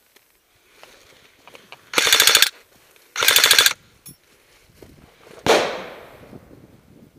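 Airsoft rifle firing two short full-auto bursts about a second apart, a rapid even rattle of shots, followed a couple of seconds later by a single sharp crack that fades over about a second.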